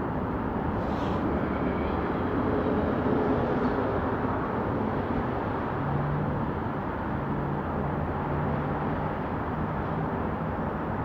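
Steady rumble of vehicle engines and traffic, with a low engine hum coming in about halfway through.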